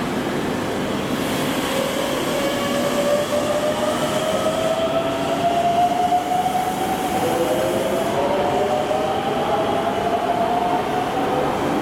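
Electric commuter train departing an underground station: its traction motors whine, the tones climbing in pitch in several steps as it accelerates away, over the rumble of the wheels, all echoing off the tunnel walls.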